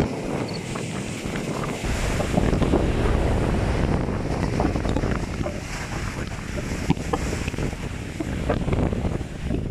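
Strong wind buffeting the microphone over the wash of a rough sea's surf, the low rumble of the wind growing heavier about two seconds in.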